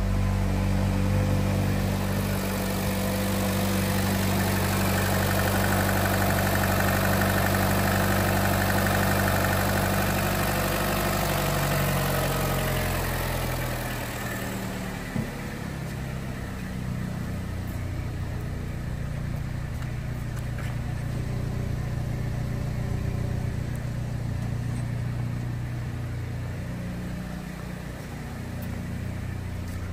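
2014 Buick Encore's 1.4-litre turbocharged four-cylinder engine idling steadily. A broad hiss over it fades out about halfway through, leaving the low, even hum of the idle.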